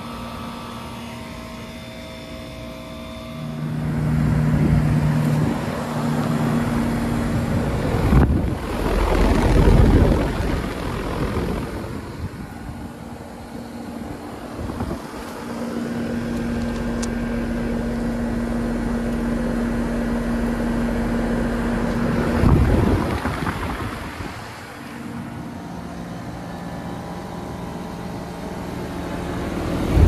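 Carrier and Trane heat pump outdoor units running, one after another: fan air blowing with a steady compressor hum whose pitch changes from unit to unit. Loud gusts of airflow on the microphone about eight to ten seconds in and again a little past twenty seconds.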